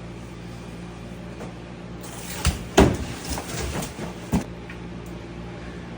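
A handful of short knocks and clatters, like a cupboard or door being handled, between about two and four and a half seconds in, the loudest near the three-second mark, over a steady low hum.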